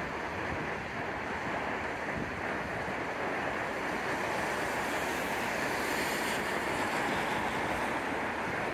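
Steady rushing noise of wind and ambience, which grows a little louder in the second half as a six-car Transperth B Series electric train comes closer in the distance.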